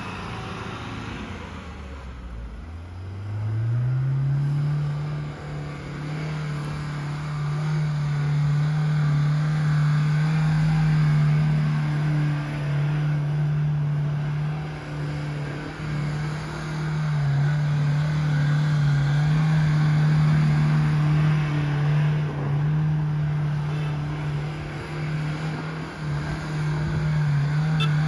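An off-road Mahindra SUV's engine revs up about two seconds in and is then held at high revs, its pitch wavering slightly, as it is driven hard through loose sand.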